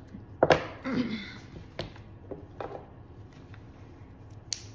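A few sharp clicks and taps of handling: floral snips being picked up and a rose laid on a wooden worktable, the loudest a quick double click about half a second in.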